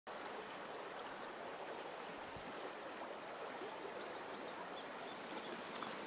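Steady rushing of the upper Volga's fast current over a riffle, with small birds giving short, high chirps scattered through.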